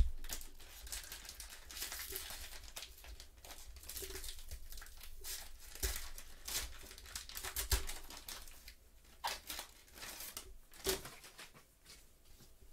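Foil trading-card pack being torn open by hand, the wrapper crinkling and crackling in short irregular bursts, with one sharp tap right at the start.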